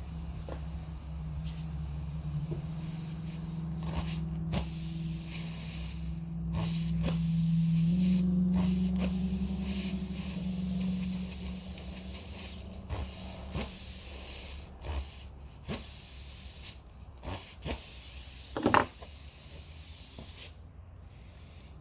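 Air hissing out of a punctured tyre while a repair plug is forced in with the insertion tool; the hiss cuts out briefly several times. A steady low hum runs underneath, with a few sharp clicks near the end.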